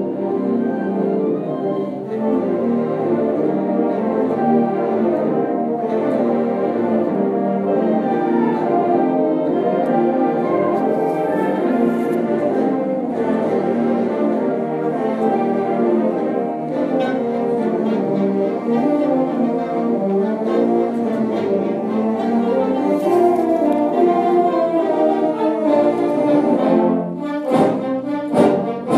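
Orchestral background music with brass, playing continuously.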